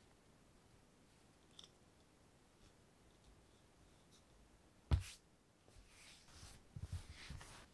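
A single sharp knock about five seconds in, then a hand brushing loose leather shavings across a cutting mat: a soft rustle with a few light thumps, lasting about two seconds.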